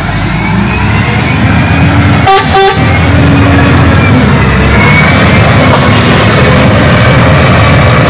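Shantui wheel loader's diesel engine running hard under load, its pitch sliding up and down as it works. A vehicle horn gives two short toots a little over two seconds in.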